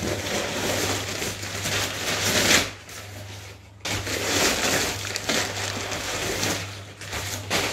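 Crumpled brown paper packing rustling and crackling as it is handled and pulled out of a cardboard box, in two stretches with a short pause about three seconds in.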